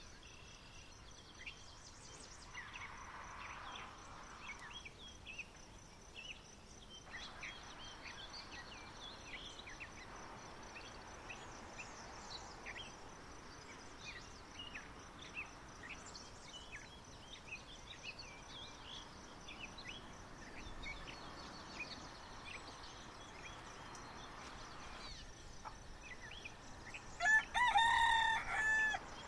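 Small birds chirping on and off over a faint steady outdoor hiss, then a rooster crowing loudly for about two seconds near the end.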